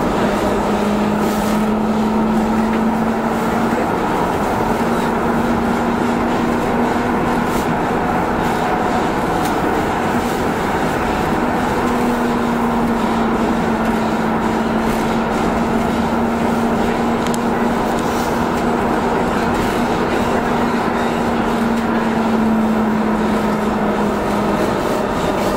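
AnsaldoBreda driverless metro train on Milan's line M5 running at speed through a tunnel, heard from inside the front car: a steady rumble of wheels on rail with a steady hum riding over it, which drops out briefly a couple of times.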